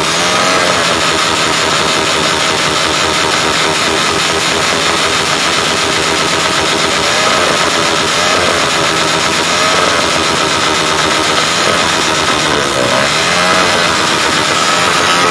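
Skygo 175 motorcycle engine revving through a loud aftermarket exhaust pipe, the revs rising and falling a few times over a steady loud run, with afterfire flashing from the pipe near the end.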